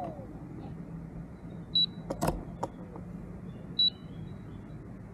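Short, high electronic beeps repeating about every two seconds from the landed quadcopter drone kit, with a few sharp handling clicks a little past two seconds in.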